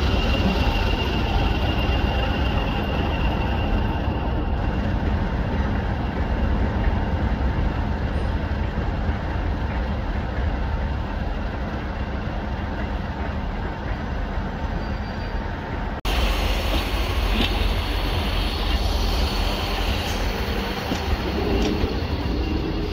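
English Electric-engined Class 50 diesel locomotive running with a steady heavy rumble and a faint high whistle. About two-thirds through the sound cuts abruptly to a different steady rail rumble with a few brief high squeaks.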